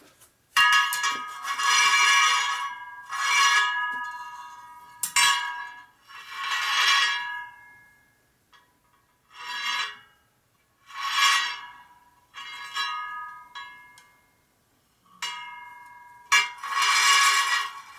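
Chrome rim of a spoked motorcycle wheel spinning on a truing stand and rubbing against the pointer at its high spots: a series of metallic scraping rings, each about a second long, coming every second or two. The rub marks where the rim still runs out of true.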